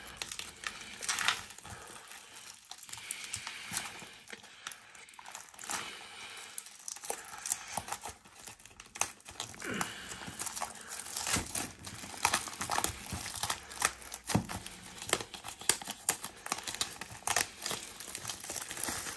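Clear plastic shrink wrap being picked at and peeled off a cardboard trading card box: irregular crinkling and crackling with short tearing sounds, sparser at first and busier from about halfway through.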